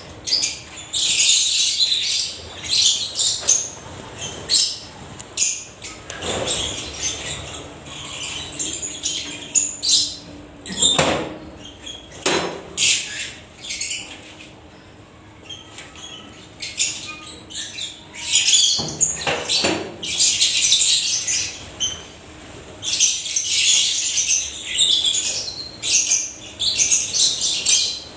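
A flock of African lovebirds chattering with shrill, high calls that come and go in bursts, easing off around the middle. A few louder thumps stand out now and then.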